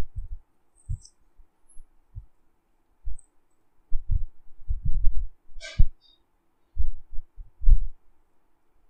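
Irregular low, dull thumps and one sharp click about six seconds in, over a faint steady hum.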